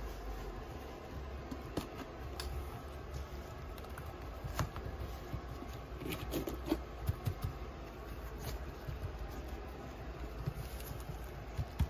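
A Yorkshire terrier puppy's paws scrabbling on artificial turf and the pen wall: scattered light taps and knocks, busiest about six to seven seconds in, over a steady low hum of room noise.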